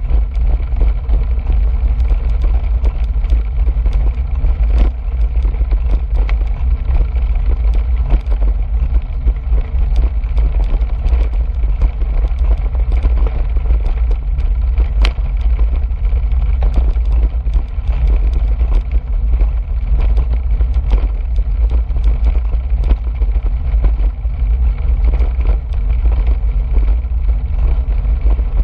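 Loud steady low rumble of wind buffeting the microphone of a camera on a moving bicycle, with scattered ticks and crackles from the tyres rolling over the gravel trail and the bike rattling.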